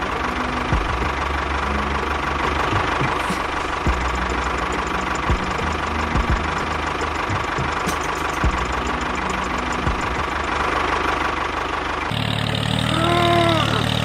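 Tractor engine running steadily with a knocking beat. About twelve seconds in it gives way to a lower, smoother hum with a few short rising-and-falling tones over it.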